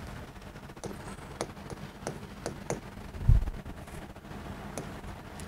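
Chalk tapping and scratching on a blackboard as writing begins: a handful of sharp ticks, with a dull low thump about three seconds in.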